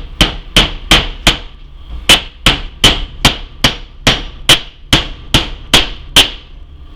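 Hammer driving a galvanized nail through the joint of a cheap wooden chest: about sixteen sharp, even blows, roughly two and a half a second, stopping about six seconds in as the nail goes home.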